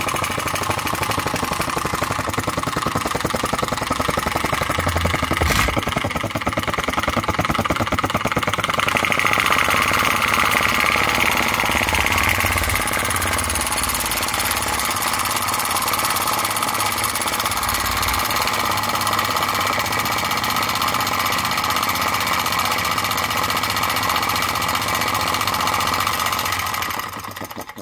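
Enjomor flame licker (vacuum) engine running fast on an open flame, making a rapid, even clatter; it is running well, its cylinder freshly honed and deburred. The sound cuts off suddenly just before the end.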